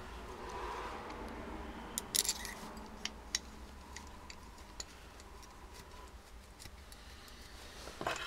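Light clicks and taps from a Bosch starter motor's parts being handled and fitted together by hand. A sharper cluster of clicks comes about two seconds in and another near the end.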